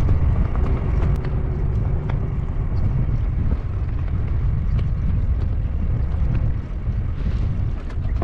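Wind buffeting the microphone: a steady low rumble, with faint scattered ticks over it.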